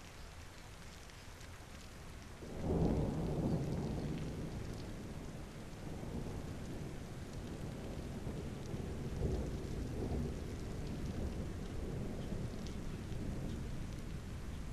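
Rain falling steadily, and about two and a half seconds in a roll of thunder breaks in suddenly and keeps rumbling low and unevenly to the end.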